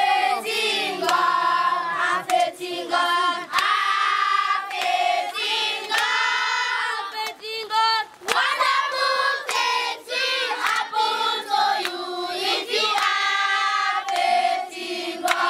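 A group of children singing together, with hand clapping along to the song.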